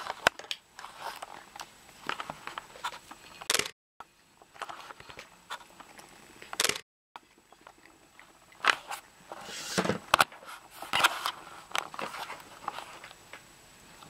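Small scattered clicks, taps and rustles as a baby handles and chews a piece of toast at a high-chair tray, busiest about two thirds of the way through. The sound cuts out completely twice, briefly.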